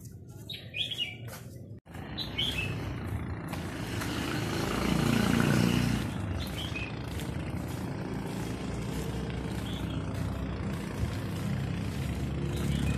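An engine running steadily, swelling louder about five seconds in and then holding, with a few bird chirps near the start.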